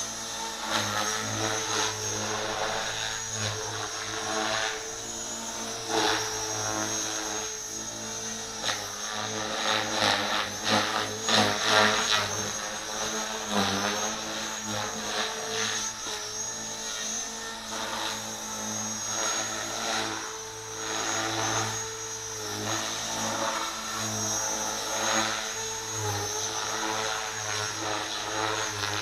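Gartt 450L electric RC helicopter flying 3D: steady whine of its motor and drive with the buzz of the rotor blades, swelling and dipping in loudness as it manoeuvres, loudest around ten to twelve seconds in.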